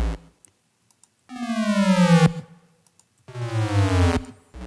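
8-bit chiptune synthesizer (Chipsounds 'crash and burn' preset) played an octave up: two short buzzy notes, each sliding down in pitch for about a second, with silent gaps between them.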